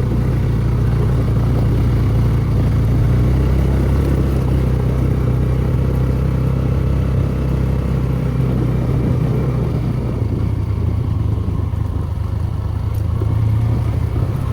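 Motorcycle engine running steadily under way, a low, even drone.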